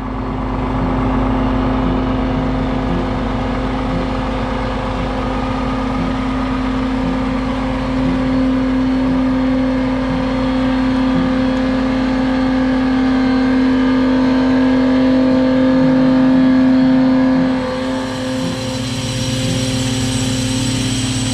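Diesel truck engine running steadily at raised revs, with the silo tanker's compressor blowing air for a wood-pellet delivery: a loud, even drone. Near the end it dips briefly, and a rushing hiss then joins in.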